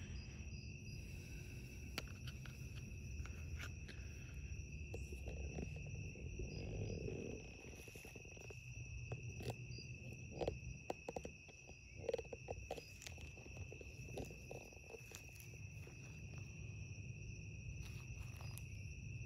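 Night insects, crickets, keeping up a steady high-pitched trill. Faint scattered clicks and knocks come in around the middle.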